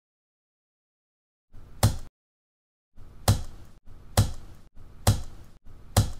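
Silence, then five sharp percussive hits. Each hit has a low thump and a short decay. The first comes about two seconds in, and the other four follow roughly a second apart: edited sound-effect hits timed to an on-screen countdown.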